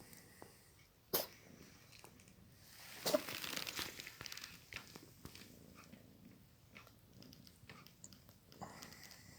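Kitten sneezing: a short sharp sneeze about a second in, then a longer, louder noisy sneeze about three seconds in.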